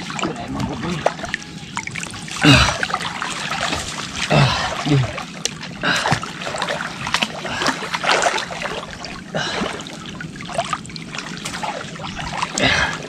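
Water splashing and sloshing as people wade chest-deep through a creek, with irregular splashes.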